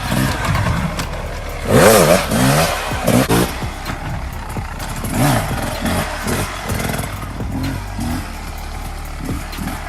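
An off-road vehicle's engine revving up and down repeatedly, loudest about two seconds in.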